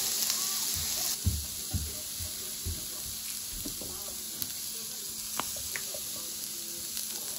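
Beef fillet steak sizzling on a hot iron griddle plate: a steady hiss, louder for about the first second, with a few low knocks and some sharp clicks of spitting fat.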